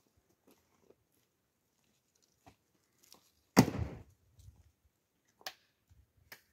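A single loud thump about three and a half seconds in, among faint scattered clicks and knocks.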